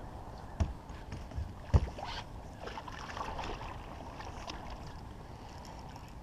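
Hooked catfish splashing at the water's surface beside a boat, with two sharp knocks about half a second and nearly two seconds in, the second the loudest.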